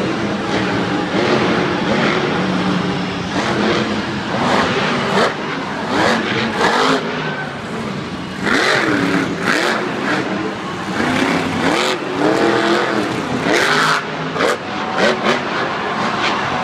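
Metal Mulisha monster truck's supercharged engine revving in bursts during a freestyle run, its pitch repeatedly rising and falling, with short sharp cracks in between.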